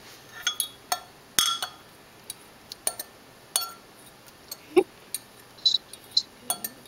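Metal fork clinking and scraping against a glass measuring cup as whisked egg is scraped out into a pan: about a dozen irregular, sharp clinks, the loudest about a second and a half in.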